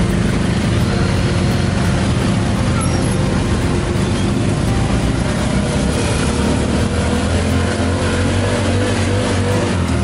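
Tuk tuk engine running steadily, heard from the open passenger cab, with the surrounding traffic of motorbikes and other tuk tuks.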